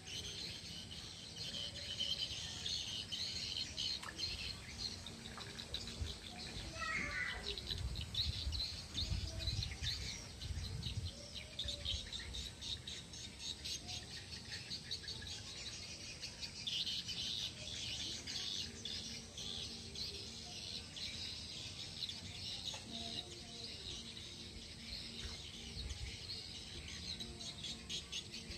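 Outdoor ambience of insects and birds: a dense, fast chirring of insects with bird chirps over it, and one short falling call about seven seconds in. Low rumbles come and go from about eight to eleven seconds in.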